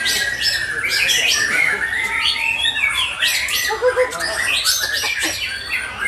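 Many caged songbirds singing at once in a songbird contest: a dense, unbroken mix of overlapping whistles, chirps and fast trills.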